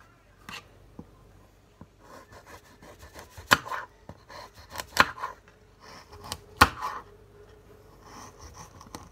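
Chef's knife slicing cherry tomatoes on a cutting board: a few sharp knocks of the blade hitting the board, about one every second and a half, with softer cuts and scrapes between.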